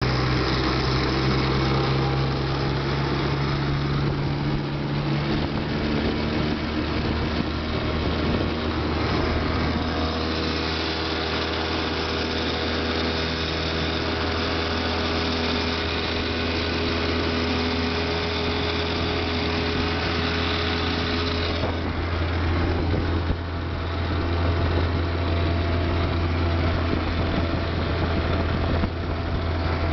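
Two-stroke 5 hp Mercury outboard running under way on an aluminum jon boat, a steady buzzing engine note over the rush of water along the hull. About two-thirds of the way through the sound shifts, with less hiss and a lower, heavier hum, as the motor is throttled back.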